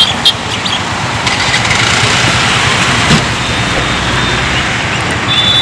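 Road traffic on a flooded street: car and motorbike engines running as they pass, with tyres swishing through standing water. There are a couple of short knocks at the very start.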